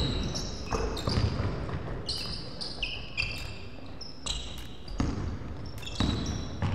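A basketball being dribbled on a wooden gym floor, with repeated sharp bounces, and sneakers giving short high-pitched squeaks on the court as players move.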